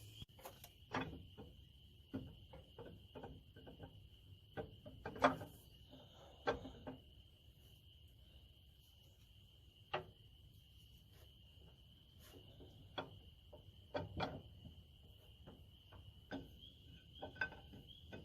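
Scattered light metallic clinks and knocks as a flat-tappet camshaft is worked out of a small-block Chevy 350's cam bearings. Under them runs a steady high chirring of crickets.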